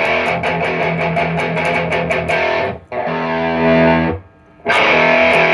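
Electric guitar through the REVV Northern Mauler high-gain pedal, its blend set to the Swedish Chainsaw (HM2-style) side, heavily distorted. A fast picked chugging riff is followed about three seconds in by a held chord that rings for about a second, a brief stop, then chugging again.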